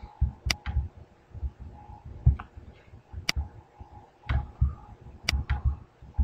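Computer mouse button clicking: sharp clicks, some in quick pairs, about half a second in, at about three seconds and at about five seconds. Soft low thumps run underneath.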